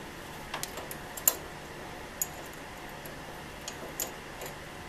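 Irregular sharp metallic clicks of a small ratchet wrench working a nut near a Model T's steering column, the loudest about a second in. The ratchet is being turned the wrong way, so the nut is not tightening.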